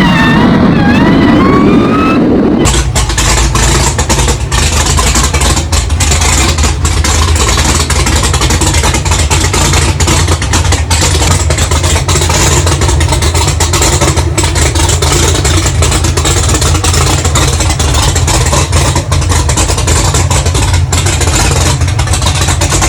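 Supercharged 427 LSX V8 in a Camaro ZL1 revving, its pitch rising and falling, then about three seconds in an abrupt change to loud, steady running with a rough, uneven beat.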